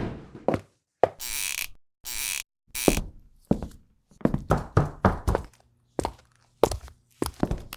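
Footsteps from a sound-effects library: separate heel-and-toe impacts at an uneven pace, with three short hissing scrapes in the first few seconds.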